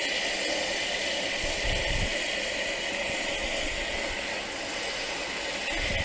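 Twin-tub camping washing machine running its wash tub on a rinse: the motor turning the agitator with a steady whirr as it churns clean hot water through the laundry to get the suds out.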